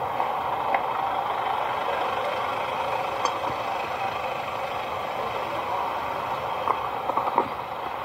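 A vehicle engine running steadily close by, with a few small clicks near the end.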